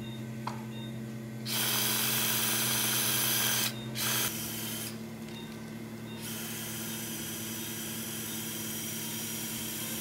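Surgical power drill driving a step drill over a guide wire through the fibula and tibia. It runs in bursts: a run of about two seconds starting about a second and a half in, then a brief one just before four seconds.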